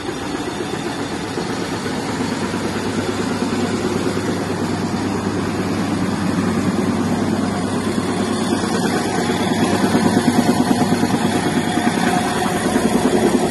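Electric-motor-driven combined chaff cutter and grain crusher (kutti and barda machine) running with a steady, fast-pulsing mechanical drone. It grows a little louder about ten seconds in.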